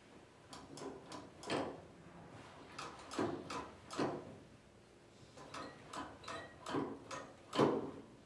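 Irregular clicks and clacks of a Donper soft-serve machine's dispensing handles being pulled and let go, the pistons sliding up and down in the dispenser door. About fifteen sharp knocks come at uneven spacing, some with a short ring.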